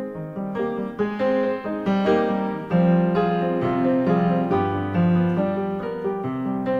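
Background piano music: a steady run of melody notes over sustained low bass notes.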